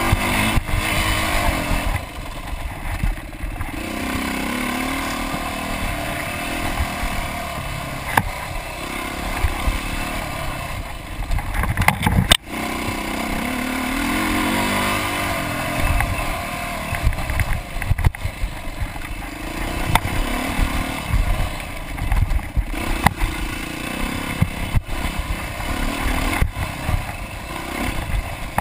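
Dirt bike engine revving up and backing off over and over as the bike is ridden hard along a rough trail, with sharp knocks and rattles as it takes bumps.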